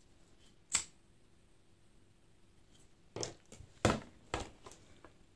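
Short handling sounds: one sharp click about a second in, then a cluster of brief rustling knocks near the middle to later part.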